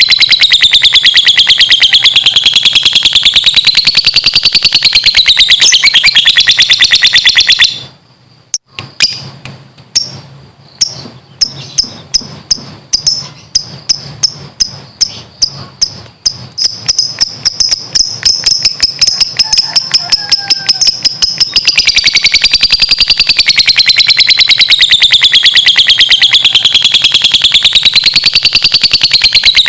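Lovebird 'ngekek': a long, very fast trill of chirps that sways up and down in pitch. It breaks off about eight seconds in, restarts as separate chirps that speed up, and runs as a continuous trill again for the last several seconds.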